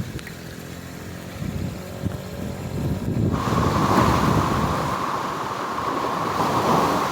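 Samurai 155i motorcycle running on the road, its engine rumble mixed with wind noise on the microphone. About three seconds in the sound changes abruptly to a louder, hissier noise with a steady mid-pitched band.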